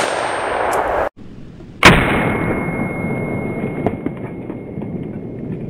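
5.56 mm rifle shots from an AR-15, two sharp cracks about two seconds apart, each followed by a lingering rush of noise.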